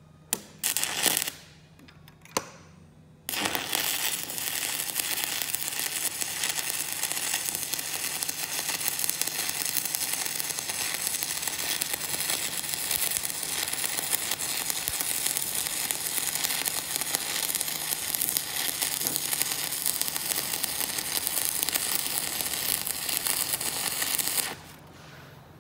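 Stick (SMAW) welding arc on a 6010 electrode at 95 amps: two short bursts as the arc is struck, then a steady crackling arc for about twenty seconds that stops abruptly near the end as the rod is pulled away.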